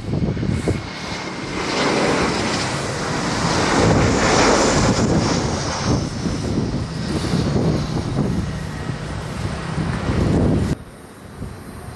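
A jet airliner's engines roar loudly as it passes, with a thin whine that slowly falls in pitch. The noise peaks about four seconds in and cuts off abruptly near the end, leaving a much quieter background.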